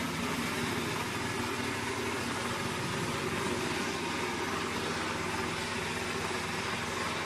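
Small mobile wood chipper's engine running steadily, with a mechanical hum and no clear changes in load.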